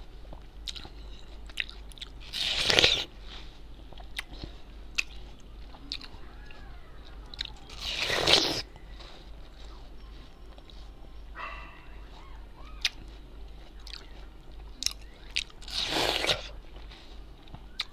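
Bites into a wedge of raw watermelon: three loud, crunching bites several seconds apart, with chewing and short wet mouth clicks between them.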